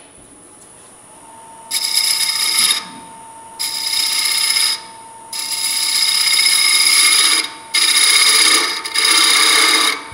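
Woodturning tool cutting into a small wooden bell spinning on a lathe, hollowing out its inside. There are five cuts of one to two seconds each: a loud scraping hiss with a ringing, whistly edge, with short quieter pauses between them.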